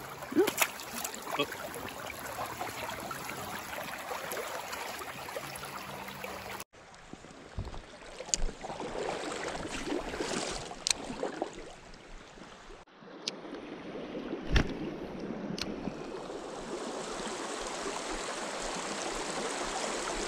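Creek water running steadily over a shallow riffle, with a few scattered sharp clicks and knocks. The water sound cuts off abruptly twice and resumes with a slightly different tone.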